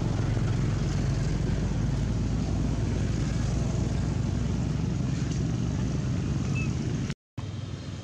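Steady low rumbling background noise that drops out to silence for a moment about seven seconds in.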